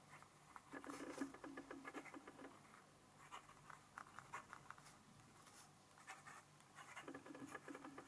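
Faint scratching of a Narwal Eclipse fountain pen's fine nib writing on smooth 90 gsm Fabriano Ecoqua paper, in three short runs of strokes with brief pauses between. The pen lays down ink from the first stroke.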